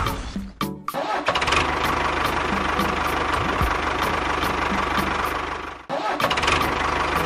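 An engine running steadily at idle, broken off for a moment just before the end, then running on.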